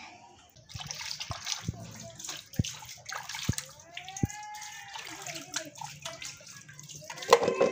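Water sloshing and splashing as hands scrub sweet potatoes in a large basin of water, with a few sharp knocks. A brief high call about four seconds in and voices near the end.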